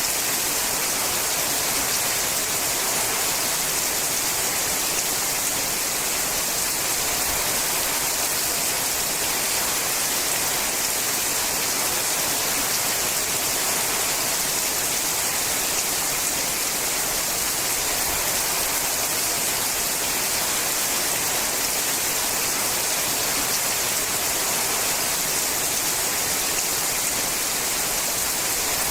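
Steady, heavy rain falling on a sheet-metal roof: an even, unbroken hiss with no single drops standing out.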